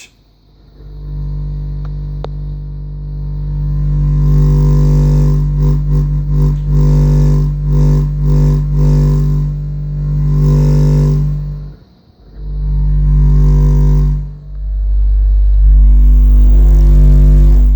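AA Mayhem 18 subwoofer playing a 49 Hz test tone, loud and low with a buzzing edge on top of it: the weird buzzing noise the owner is chasing. The tone swells over the first few seconds and flutters in the middle. It cuts out briefly twice in the second half.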